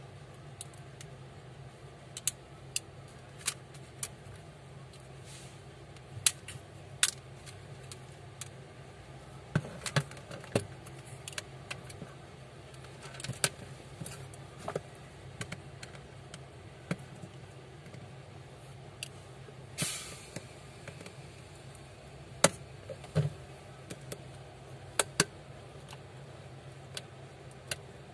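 Scattered sharp clicks and taps as a smartphone's plastic mid-frame is pried off and the parts are handled on a work mat, with a longer scraping sound about twenty seconds in, over a steady low hum.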